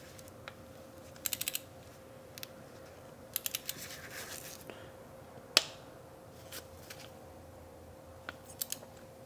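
Ratcheting wrench clicking in short runs of quick clicks as a new spark plug is turned down into the cylinder head, with one sharper single click about halfway through.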